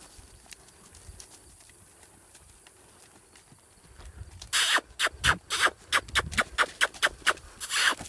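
Hoofbeats of a saddled horse trotting on a lunge line over grass: faint at first, then a fast run of loud, sharp thumps from about halfway in as the horse speeds up.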